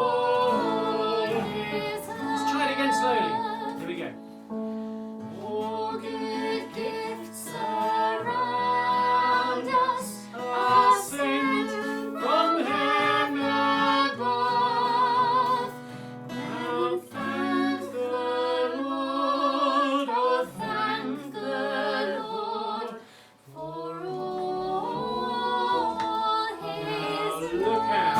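Women singing a song, with held, wavering notes over a steady instrumental accompaniment.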